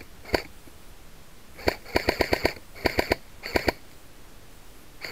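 Airsoft gun firing single shots and short bursts, sharp clicking reports. The fastest is a rapid string of about six shots around two seconds in, with a few more shots in ones and pairs after it and near the end.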